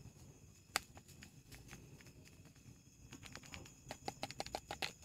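Metal spoon clinking against a stainless steel mug while coffee is stirred. One sharp clink comes just under a second in, then a quick run of light, ringing clinks over the last two seconds.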